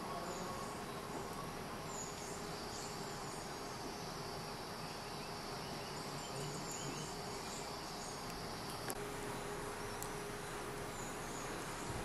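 Insects buzzing in tropical forest ambience. A steady high drone comes in a few seconds in and stops suddenly about three-quarters of the way through. Short faint high chirps sit over a constant hiss.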